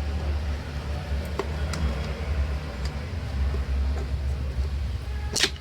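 Steady low machine hum with a few light clicks and ticks, and one sharper click near the end.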